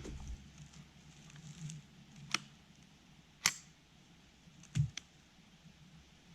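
Three sharp clicks about a second apart, the last with a soft thump: handling noise on a .22 rifle that carries a mounted camera.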